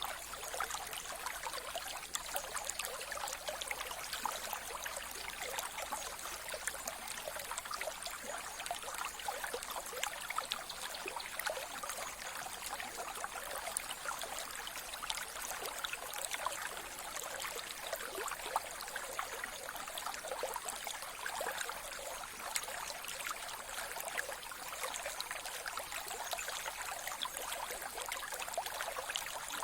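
Mountain river flowing steadily: an even rush of water with many small splashes and trickles.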